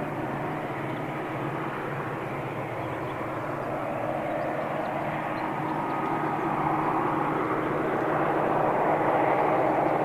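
Diesel freight locomotives approaching, their engines running with a steady drone that grows gradually louder as the train draws nearer.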